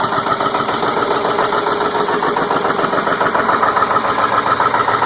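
Ford 7.3-litre Powerstroke V8 turbo diesel of a 2002 F350 idling steadily with a fast, even clatter, still cold shortly after a hard cold start.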